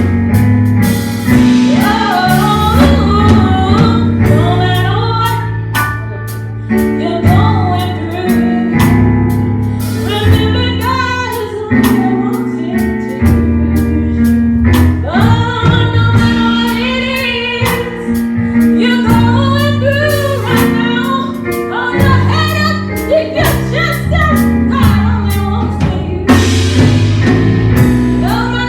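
Gospel worship music: singing over a live band with bass and drums.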